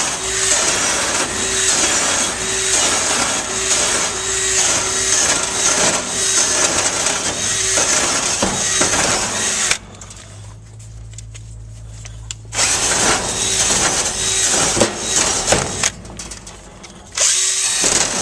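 Electric drill spinning a wire brush against barbecue grill grates, scrubbing off rust and grime. The drill stops for about three seconds about ten seconds in, then runs again, with another short pause near the end.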